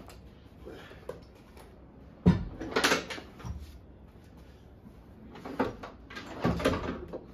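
Clunks and knocks of a RaceQuip fixed racing bucket seat on metal side mounts being set into a car's passenger footwell and shifted into place. The loudest thump comes a little over two seconds in, with a further cluster of knocks near the end.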